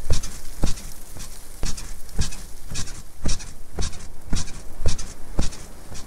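Bed squeaking in a steady rhythm, about two squeaks a second, each with a low thump under the squeak.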